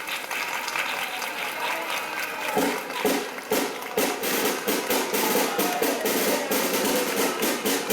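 Live brass band music with a drum beat, about two strokes a second from a couple of seconds in, over crowd noise.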